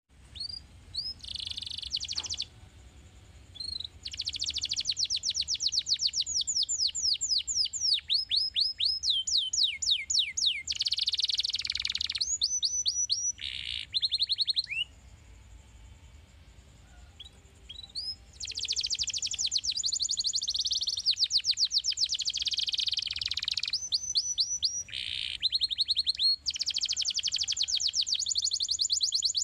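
Yellow domestic canary singing long phrases of fast rolling trills and rapid runs of repeated falling notes. The song breaks off briefly about three seconds in and for about three seconds in the middle, then starts again.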